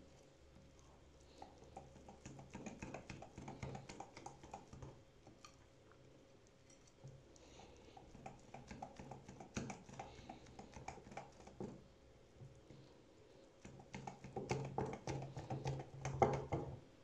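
Bursts of rapid, light clicking and scraping in three spells, the loudest near the end, over a faint steady hum: hand work with kitchen utensils while preparing a cake.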